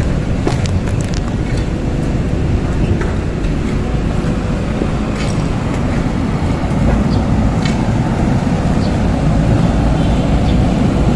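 Heavy diesel engine of a construction vehicle running steadily, a low rumble that grows a little louder about seven seconds in, with a few light clicks over it.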